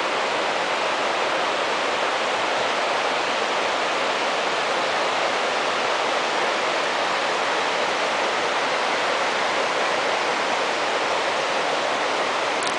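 Steady rushing of a waterfall and the burn running below it, an even hiss of water with no change in level.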